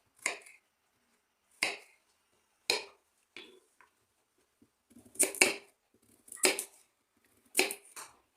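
Knife chopping carrot into small cubes on a cutting board: separate sharp chops roughly a second apart, with a few in quick succession in the middle.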